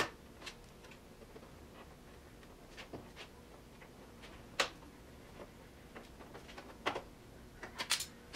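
Scattered light clicks and taps of a rubber door-glass seal being worked by hand onto the top edge of a Triumph TR6's steel door, with a quick run of clicks near the end.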